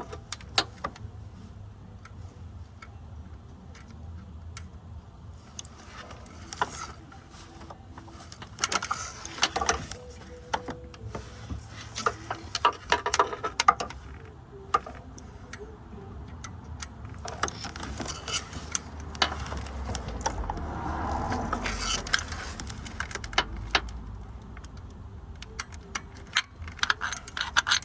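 Small ratchet wrench clicking in several bursts as a bolt is turned, with metal tools clinking between them.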